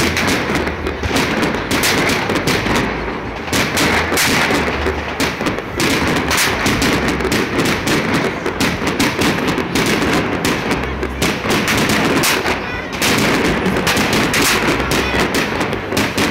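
Loud live band music from the stage, with dense, pounding drum hits and a low bass line, harsh and overdriven in a phone recording from the crowd.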